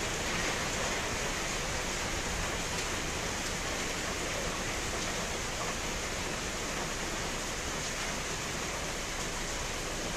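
Steady rain falling, an even hiss with no breaks or distinct drops standing out.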